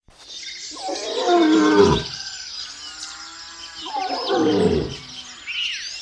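A large animal calling twice, each a loud roar-like call that falls in pitch, with birds chirping throughout behind it.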